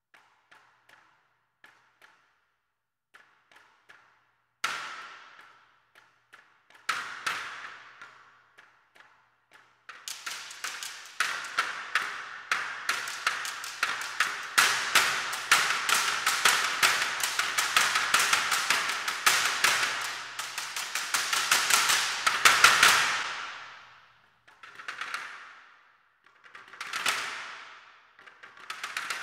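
Sampled bamboo sticks clacking, from Tonehammer's Bamboo Ensemble 'clacks and swooshes' patch. It opens with a few faint scattered clicks. Two louder strikes follow, then a long stretch of dense, rapid clacking rolls that builds to its loudest before fading, and it ends with three short rolls that swell and die away.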